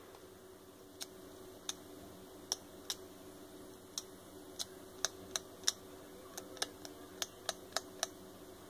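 Irregular sharp clicks and taps from a smartphone being handled and its screen being wiped by fingers, coming faster in the second half, over a faint steady hum.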